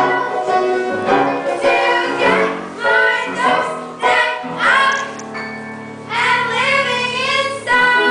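Children singing a musical-theatre number together with keyboard accompaniment. The voices slide between long held notes over sustained chords, then break off near the end as the keyboard plays on.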